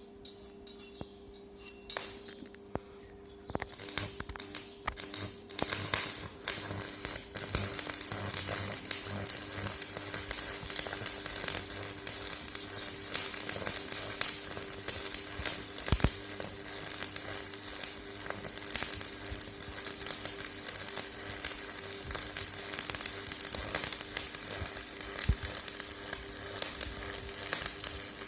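Stick (shielded metal arc) welding: a few sharp clicks as the electrode is struck, then about three and a half seconds in the arc catches and crackles and sizzles steadily as the bead is run along two flat bars. A low steady hum runs underneath.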